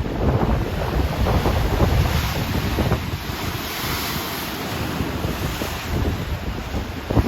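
Choppy Atlantic Ocean waves crashing and washing, with a hissing swell of surf about four seconds in. Wind buffets the microphone, adding a gusty low rumble.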